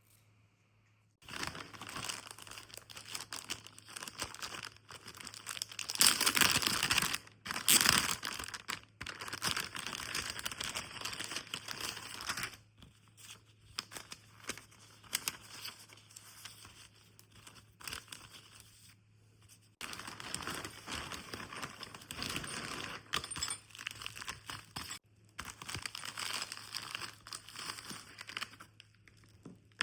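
Packaging being crinkled and torn open by hand in uneven bouts, loudest a few seconds in, with short pauses between handlings.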